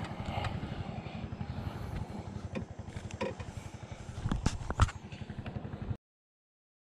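A small engine running with a rapid low throb, with a few sharp knocks over it; the sound cuts off suddenly near the end.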